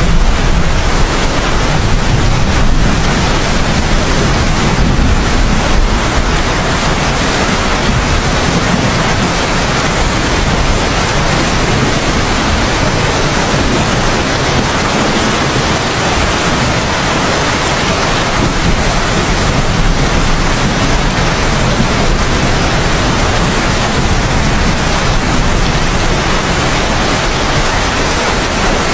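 Heavy, steady rain, a dense hiss, with a low thunder rumble in the first few seconds that dies away.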